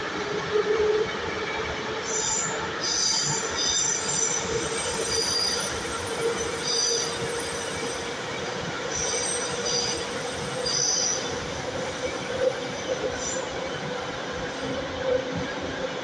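Metro train running, heard from inside the carriage: a steady rumble of wheels on rail with a humming tone. High-pitched wheel squeals come and go from about two seconds in until about eleven seconds in.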